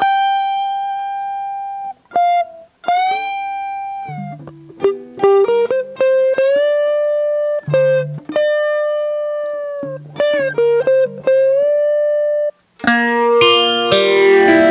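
Stratocaster-style electric guitar played through the Boss BR-800's amp modelling: a lead line of long sustained single notes with string bends and slides, a few low notes underneath, and brief stops between phrases. Near the end it rings out into a full strummed chord.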